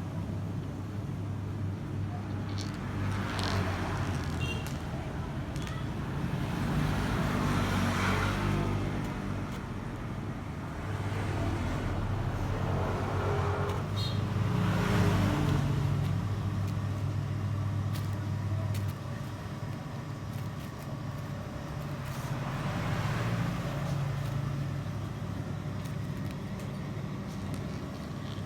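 Road traffic: a steady low engine hum with vehicles passing, swelling and fading about four times.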